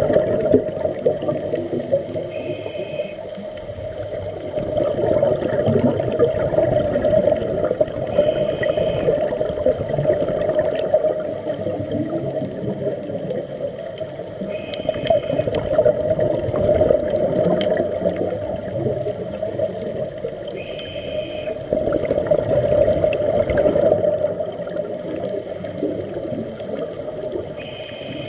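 Scuba diver breathing through a regulator underwater: five short whistling inhales about six seconds apart, with the bubbling gurgle of exhaled air rising and falling in between.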